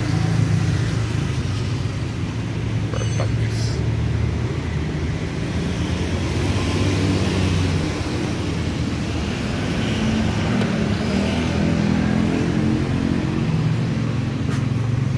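Steady road traffic noise, with engines running in a low, wavering hum. There are faint voices and a couple of short clicks, one about three seconds in and one near the end.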